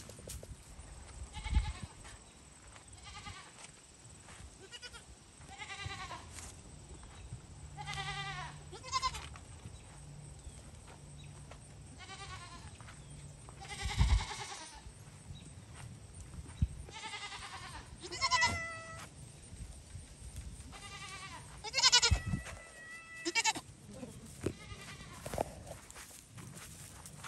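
Goat kids bleating again and again, a dozen or so wavering calls from several animals, some overlapping, with a few knocks in between.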